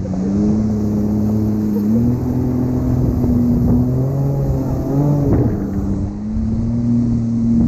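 Jet ski engine running at speed under load, its hum shifting up and down with the throttle, over the rush of water.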